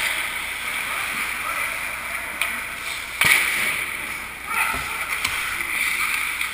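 Ice hockey skates scraping and carving on rink ice, with a few sharp stick-on-puck or stick-on-ice clacks, the loudest about halfway through, and players' voices in the background.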